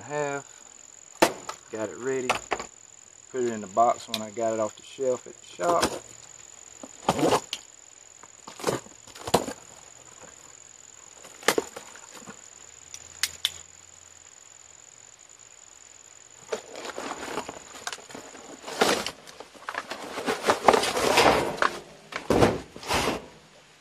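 Cardboard box and paper being handled: scattered knocks and scrapes, then a dense crinkling rustle near the end as a new condenser fan motor in its paper bag is lifted out of its box. A steady high-pitched insect drone runs underneath and stops about 19 seconds in.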